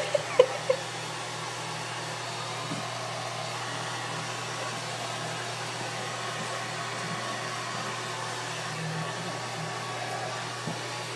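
Handheld blow dryer running steadily, drying wet Boston terriers after a bath, with two short vocal sounds right at the start.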